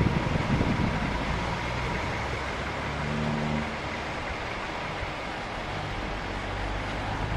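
Heavy wrecker trucks' diesel engines running steadily, a low hum with cars moving about.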